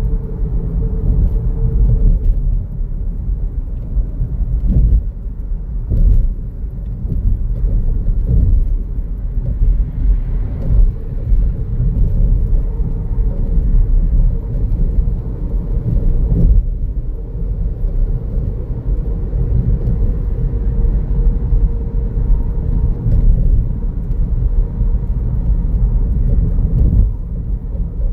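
Car driving along, with a steady low rumble of tyres and engine and a faint hum. A few brief thumps come through, several seconds apart.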